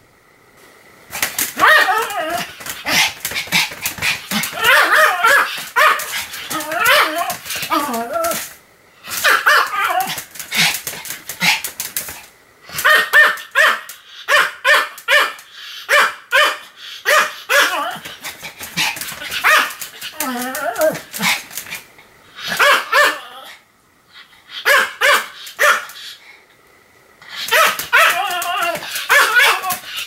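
A Pomeranian barking over and over in quick runs of barks, with a few short pauses between the runs.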